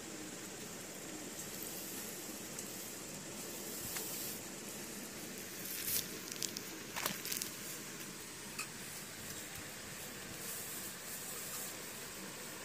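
A cat's paw scraping and tapping on the paper of a spiral notebook, with a cluster of short scratches about six to seven seconds in and one more a little later, over a steady hiss.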